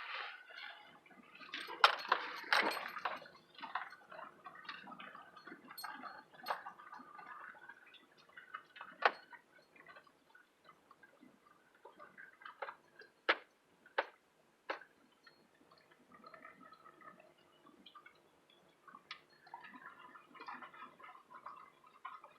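Scattered light knocks and clicks, irregularly spaced, over a faint steady background, with a few louder knocks about two seconds in, about nine seconds in, and three between thirteen and fifteen seconds in.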